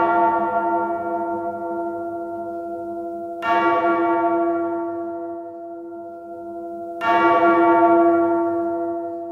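Deep bell tone struck three times, about three and a half seconds apart, each stroke ringing on and slowly fading; an intro sound effect.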